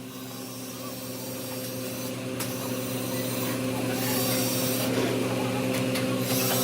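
A vehicle engine running at a steady pitch, growing steadily louder.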